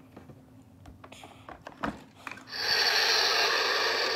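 A few faint clicks, then about two and a half seconds in a loud, steady whooshing hiss starts abruptly: a talking toy's takeoff sound effect played through its small speaker.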